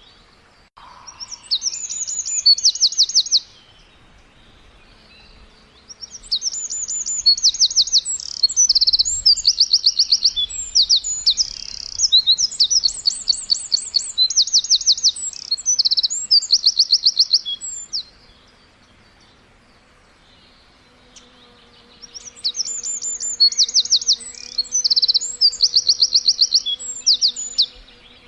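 A songbird singing high, rapid trills and varied chirping phrases in three bouts, the longest lasting about twelve seconds, with short quiet pauses between.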